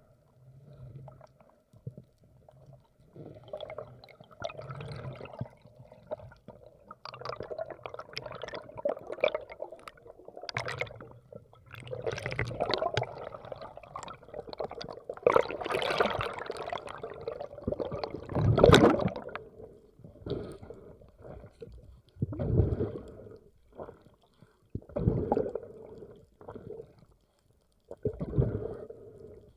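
Water sloshing and gurgling around the microphone in irregular surges, the loudest a little past the middle, then shorter separate splashes every few seconds.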